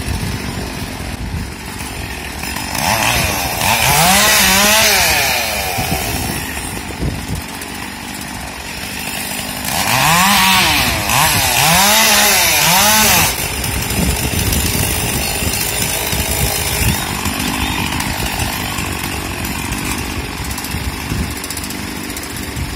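Chainsaw running at idle, revved hard twice, about three and ten seconds in. Each burst lasts a few seconds, its pitch rising and falling several times.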